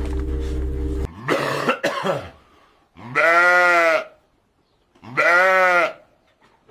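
Goat bleating: a rough, cough-like call, then two long, drawn-out bleats about two seconds apart. A steady low hum runs under the first second and cuts off.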